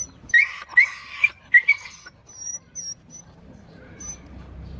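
A small animal giving a quick run of short, high-pitched squeals in the first two seconds, followed by a few faint thin chirps.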